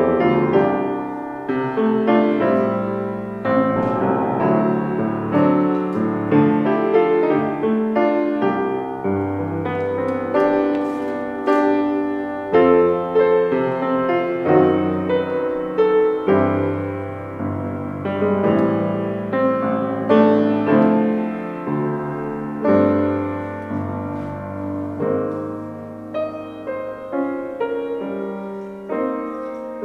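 Piano playing a gentle piece: chords and melody notes struck and fading away, over low bass notes.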